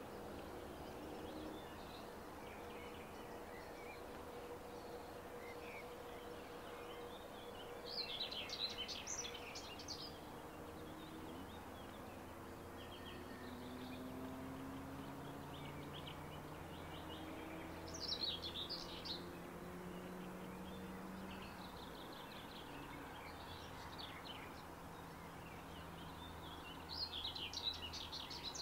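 A songbird singing three short bursts of rapid high notes, about a third and two-thirds of the way in and again near the end, over a faint steady outdoor background noise.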